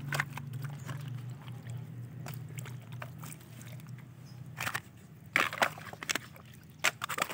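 Crackling and rustling of twigs, dead leaves and debris in a muddy, water-filled creek bed, with a few sharp snaps in the second half over a low steady hum.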